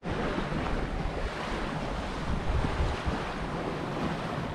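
Steady wind noise on the microphone over water rushing along the hull of a small yacht under sail.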